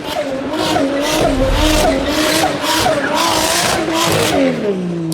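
Nissan Skyline R33 engine held at high revs while its rear tyres spin and squeal in a burnout or donut. The revs waver up and down, then drop away near the end.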